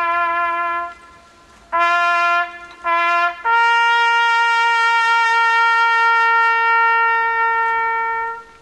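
Solo trumpet playing a slow call: a held note ends about a second in, two short notes follow at the same pitch, then a long, steady, higher final note is held for about five seconds before stopping near the end.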